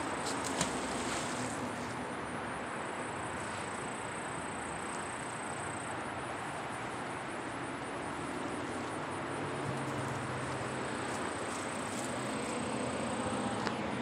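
Steady outdoor background hiss, with a thin, high insect trill that comes in a few seconds in and again near the end, and a few faint clicks at the very start.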